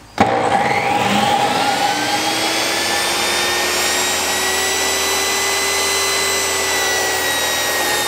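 Table saw switched on, its motor and blade spinning up with a rising whine over the first couple of seconds, then running steadily at full speed.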